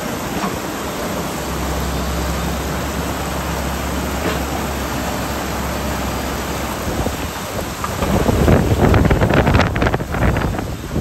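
Steady rushing wind noise with a low hum through the first half, then gusts buffeting the microphone in rough low rumbles near the end.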